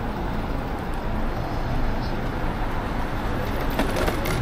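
Busy city street traffic: a steady rush of cars passing close by, with a few sharp clicks near the end.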